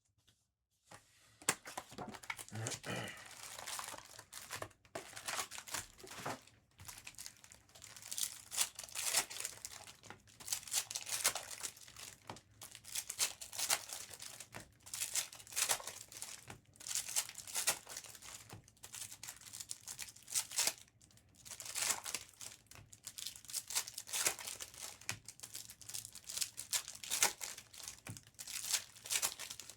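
Foil trading-card pack wrappers being torn open and crumpled by hand, an irregular crinkling and tearing that starts about a second in.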